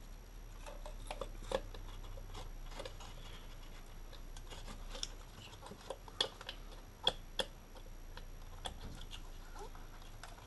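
Irregular light clicks and taps of plastic ignition coil packs and their connector plugs being handled and pushed into place. The sharpest clicks come about six and seven seconds in.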